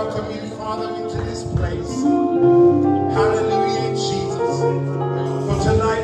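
Live church praise band playing a slow worship song: held chords over a bass line, with a few drum hits.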